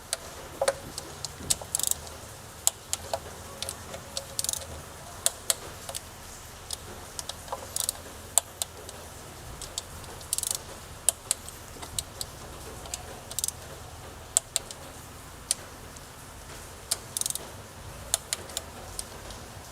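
Torque wrench ratcheting and clicking as the valve cover bolts are tightened to 10 Nm: irregular sharp clicks and a few short rattles, repeating bolt after bolt.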